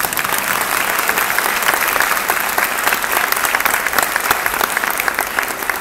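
Audience applauding loudly, many hands clapping at once, with some sharp claps close by standing out.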